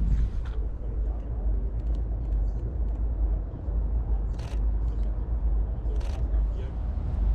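Three short clicks of a camera shutter firing, one at the start, one about four and a half seconds in and one about six seconds in, against a steady low street rumble.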